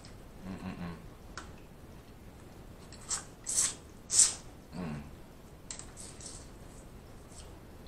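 A person eating with the mouth close to the microphone: wet lip smacks and sucking at food and sauce-covered fingers, the sharpest smacks in a quick cluster about three to four seconds in, with a short low hum near the start and another about five seconds in.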